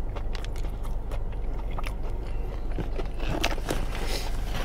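A person biting and chewing a batter-fried fish fillet, the crisp batter crackling in short clicks that come thickest about three seconds in.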